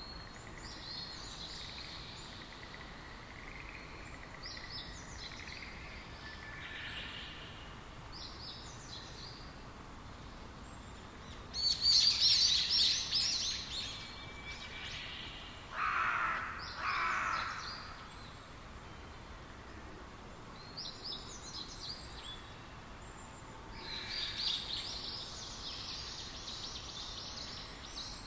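Songbirds chirping in short, separate phrases over a steady background hiss. The loudest is a rapid twittering burst about twelve seconds in, followed by two lower calls.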